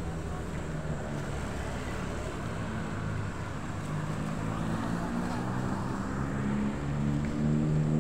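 Road traffic: the engine of a nearby vehicle running with a steady hum over the noise of passing cars, growing louder near the end.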